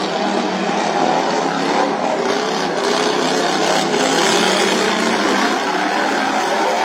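Racing lawnmower engines running together, their pitch wavering up and down.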